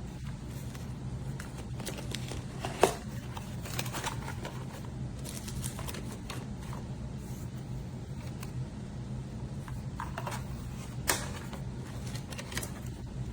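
Scattered clicks and knocks, like objects being handled, over a steady low hum. The sharpest knock comes about three seconds in and another near eleven seconds.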